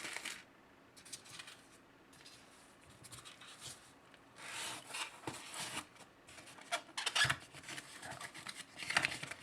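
Packaging being handled, rustling and scraping, as items are taken out of an unboxed airsoft pistol's box. A few sharp knocks come near the end.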